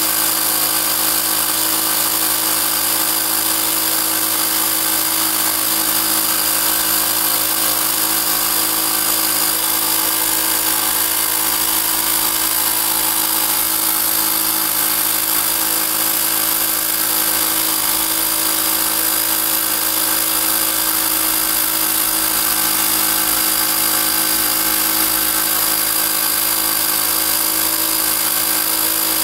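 Small 12-volt 300 psi portable air compressor running steadily, its motor and piston pump giving an even hum over a bright hiss as it inflates a balloon.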